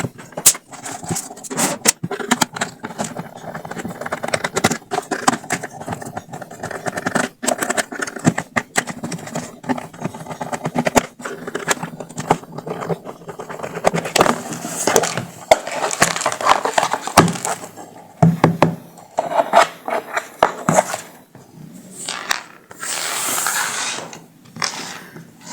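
A plastic Bluetooth speaker casing being taken apart by hand and with tools: irregular clicks, knocks and scraping of plastic parts.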